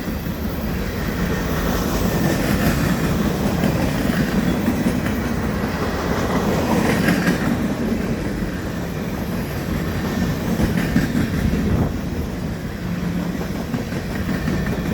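Freight cars of a long manifest train rolling past, with a steady rumble and the clickety-clack of wheels over rail joints, and a brief faint wheel squeal about seven seconds in.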